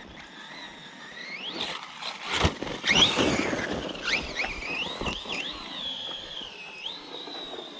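Redcat Racing Kaiju EXT RC monster truck's electric motor whining, its pitch rising and falling with the throttle, with a couple of thumps and a louder rush of noise about two and a half to three seconds in.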